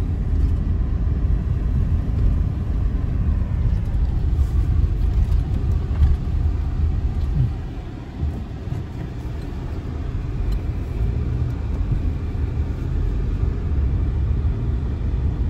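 Road and engine rumble heard inside a moving car's cabin, a steady low drone that eases for a few seconds about halfway through, then builds again.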